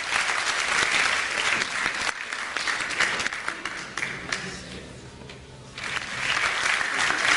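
Audience applauding. The applause fades about four and a half seconds in, then a new round starts about a second later.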